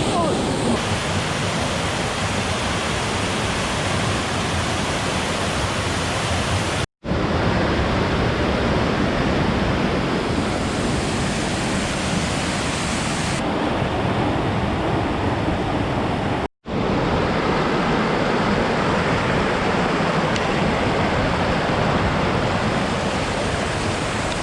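Steady rush of a mountain stream and waterfall, a dense even hiss of falling water. It drops out to silence for an instant twice, about seven and sixteen seconds in.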